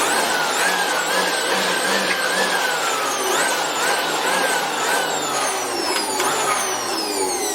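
Makita blower running as it blows dust out of a printer: a rushing air noise with a motor whine. The whine sags and jumps back up in pitch about twice a second, and then falls steadily over the last second or so.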